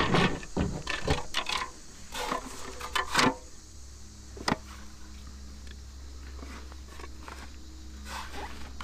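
Handling noises as a smallmouth bass is laid on a plastic fish measuring board: a quick run of scrapes and knocks in the first few seconds, a single sharp click about halfway through, and more scraping near the end.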